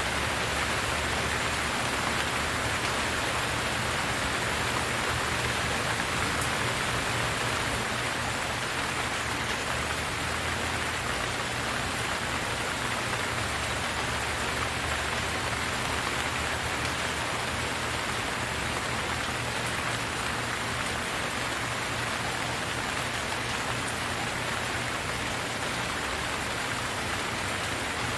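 Steady rain falling, an even hiss of many drops on a surface with no thunder or gaps.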